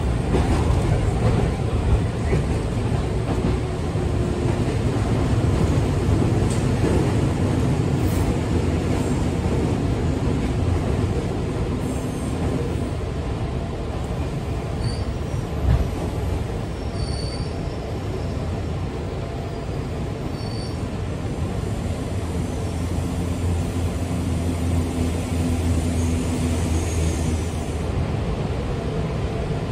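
Inside a running JR 205-series (3100 subseries) electric motor car: a steady rumble of the wheels on the track with a low hum under it. A few brief high squeaks come about halfway through.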